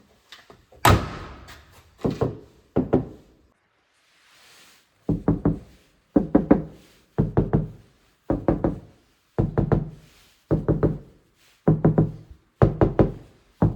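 Knuckles knocking on the VW Up!'s sound-deadened bonnet panel. One hard hit about a second in, then from halfway on a steady run of quick double and triple knocks about once a second, each with a short low ring.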